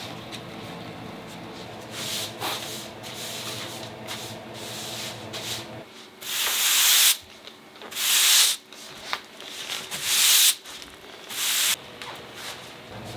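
Bristles of a handmade stitched broom sweeping across a plank floor. Softer rustling is followed, in the second half, by four loud swishing strokes, each under about a second long.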